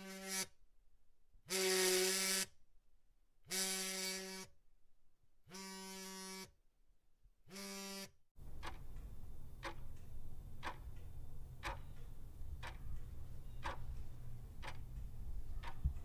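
A mobile phone vibrating: about five buzzes, each roughly a second long, two seconds apart. About eight seconds in it gives way to a clock ticking about once a second over a low steady rumble.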